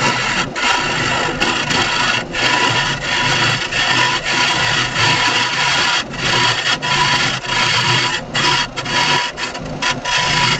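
Elbow hollowing tool taking light cuts inside a spinning laminated wood blank on a wood lathe: a steady scraping hiss that breaks off briefly many times as the cutter comes away from the wood, over a thin steady whine and the low hum of the running lathe.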